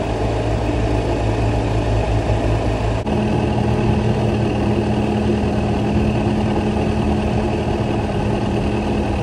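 Boat motor running steadily under way, with an abrupt change in its pitch about three seconds in. The owner says this motor is running badly and blames a blown head gasket.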